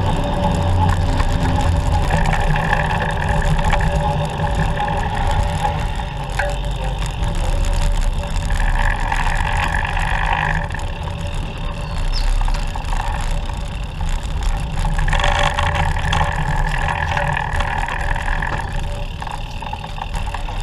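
Road and traffic noise from a moving recumbent trike in city traffic: a steady low rumble that swells three times, at about two, nine and fifteen seconds in.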